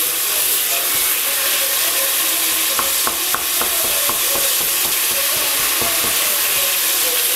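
Minced beef sizzling in hot oil in a stainless-steel pot while a spoon stirs it and breaks it into crumbs, so that it browns without forming lumps. There are a few light clicks a little before the middle.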